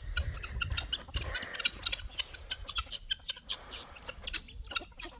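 A flock of chickens and guinea fowl calling in many short, overlapping chirps and clucks.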